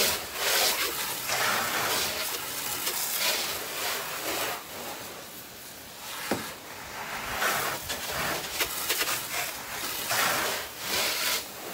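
Garden hose spray nozzle spraying water onto a car's body panels, a steady hissing spray that swells and dips as it is swept along the car.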